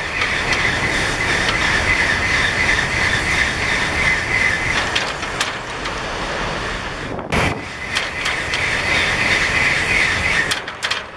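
Shinkansen bullet train passing close by at full speed: a loud, continuous rush of air and wheels with a steady high hiss on top. The sound breaks off briefly about seven seconds in, then resumes.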